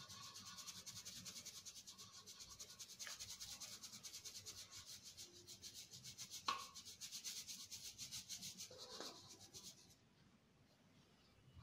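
Ground rice flour being sifted through a handheld plastic mesh sieve shaken back and forth over a metal tray: a faint rhythmic rubbing hiss, several strokes a second, with one light knock about six and a half seconds in. The shaking stops near the end.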